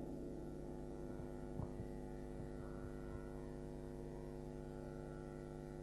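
Faint, steady electrical mains hum with a stack of evenly spaced overtones, with a soft tick about one and a half seconds in.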